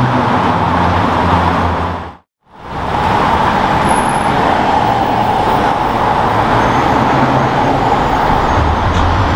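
City street traffic: car engines running and tyre noise, loud and steady, broken by a brief drop to silence about two seconds in.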